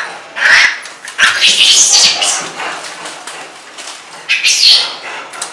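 Rhesus macaques giving harsh, screechy calls in three loud bouts: a short one about half a second in, a longer stretch from about one to two and a half seconds, and another near the end.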